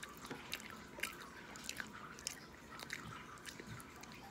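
A person chewing a mouthful of food close to the microphone, with irregular wet smacks and clicks of the lips and tongue.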